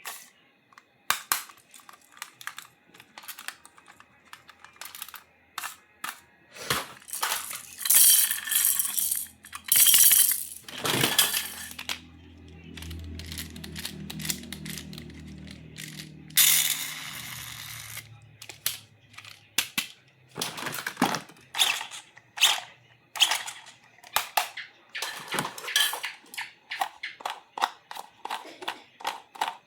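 Hard plastic toy pieces clicking and tapping as they are handled and fitted together, with a few short bursts of rustling packaging. A low tone slides down in pitch for several seconds midway through.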